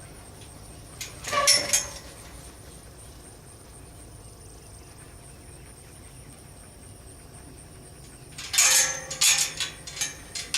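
Sheep and a working dog moving about in a pen: a short burst of knocks and scuffles about a second and a half in, then a denser run of sharp knocks and rustles near the end, over a steady faint background.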